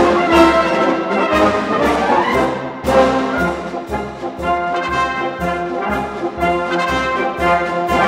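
Military band playing an instrumental march-song arrangement, brass carrying the melody over a bass that falls on about two beats a second.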